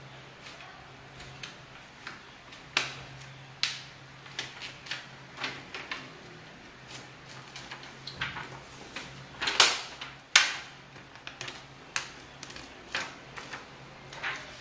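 Plastic carrier sheet of polyflex heat-transfer vinyl being peeled slowly off a jersey and handled, giving irregular crackles and crinkles, the two loudest about ten seconds in. A steady low hum runs underneath.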